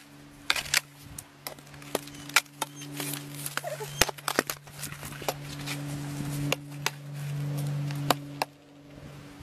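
Sharp, irregular taps and clacks of a plastic hockey stick knocking against crusted snow and a small ball, over a steady low hum.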